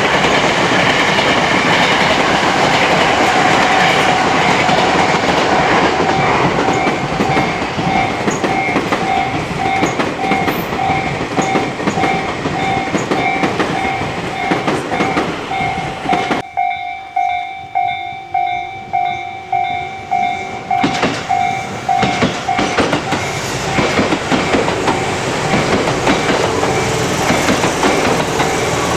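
Tobu Railway electric train passing over a level crossing with rumbling wheels and clattering rail joints, while the crossing's warning bell rings in a steady clang about twice a second. The train noise drops away about two-thirds of the way in, leaving the bell ringing on its own for a few seconds, and then another train's noise rises again near the end.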